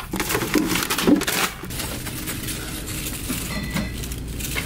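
Groceries being handled and set into a plastic shopping cart: a quick run of knocks and rustles over the first second and a half. After that comes a steady low store hum.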